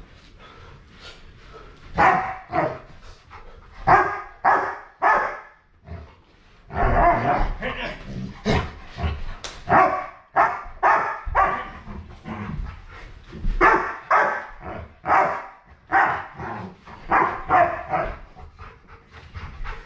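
Large tan dog barking over and over during rough play, in runs of short barks with a brief lull about six seconds in.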